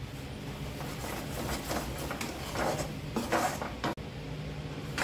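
A spatula scraping and stirring a thick, sticky ginger and jaggery syrup in a pan, with irregular scrapes and knocks every second or so over a steady low hum. The syrup has thickened almost to the point of setting.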